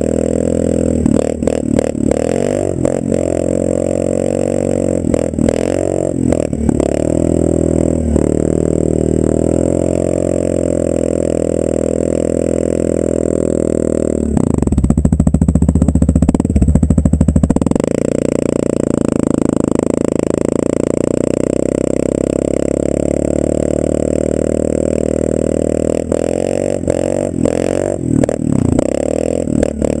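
Yamaha Grizzly 550 ATV's single-cylinder four-stroke engine through a Barker's slip-on exhaust, revving up and down as it is ridden. About halfway through there is a louder stretch of hard throttle lasting about three seconds.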